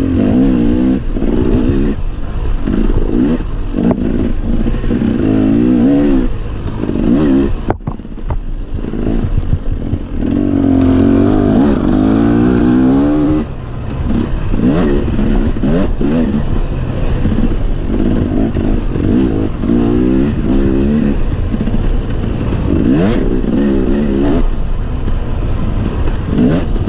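Dirt bike engine revving hard and easing off again and again as it is ridden fast, its pitch climbing and falling with the throttle and gear changes. The engine note dips briefly about eight seconds in, and about eleven seconds in it climbs for a long stretch.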